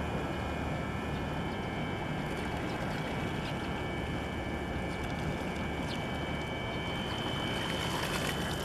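Steady harbour ambience: a constant low rumble with a noisy wash over it, and faint steady high-pitched whines.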